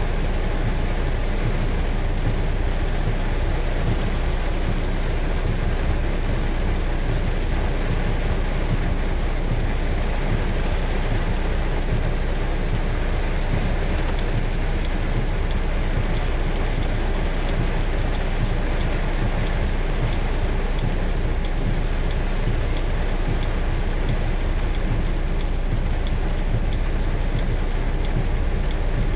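Heavy rain and floodwater rushing down a street, a steady loud rush of noise with no breaks.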